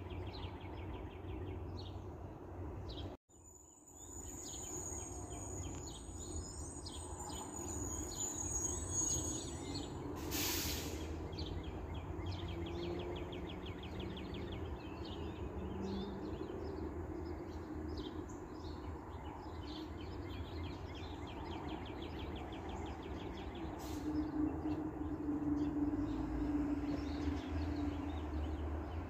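Backyard songbirds chirping and trilling in a busy chorus, many short rapid trills repeating throughout, over a low steady background rumble.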